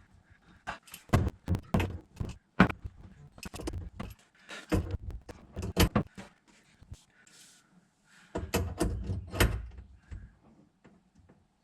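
Irregular knocks and clunks of hard objects being handled, in two clusters with a short pause between.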